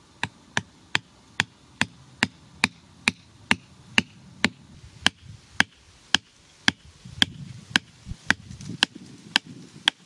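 A wooden stake being pounded into the dirt with a heavy chopping knife: about twenty sharp, even knocks at roughly two a second.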